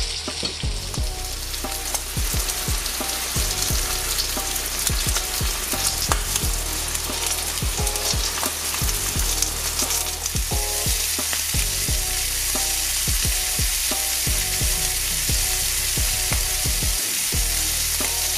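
Homemade hash brown patties shallow-frying in hot oil in a cast-iron skillet: a steady sizzle full of fine crackling pops. The sizzle gets fuller about halfway through.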